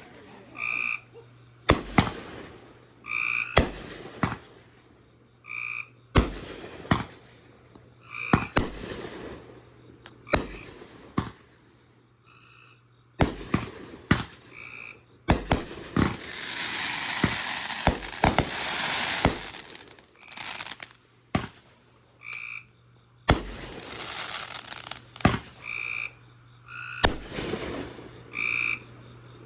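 Consumer fireworks going off: a string of sharp bangs that echo, irregularly spaced, with a few seconds of dense hissing crackle a little past halfway. A short call repeats every couple of seconds in the background.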